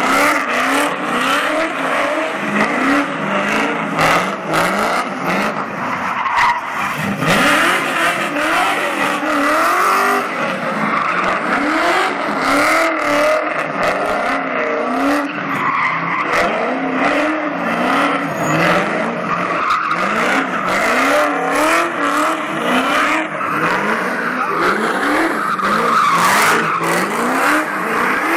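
Camaro Z28's built 383 stroker V8 revving hard while the rear tyres spin and squeal through donuts. The revs climb and drop over and over, about once a second.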